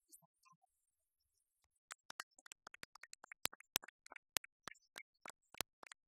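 Scattered applause from a small group: quick, irregular hand claps starting about two seconds in.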